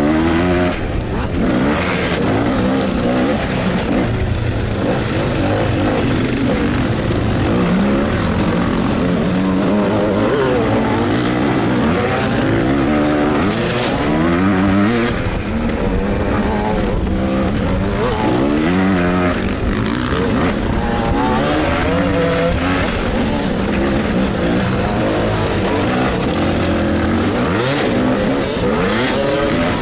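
Dirt bike engine revving up and down as it is ridden hard along a gravel trail, heard from a camera on the rider's helmet. The pitch climbs and falls back every second or two as the rider opens and shuts the throttle.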